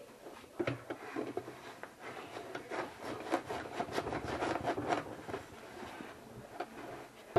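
Fabric rubbing and scraping with scattered light clicks and taps, irregular, while the sewing machine is stopped.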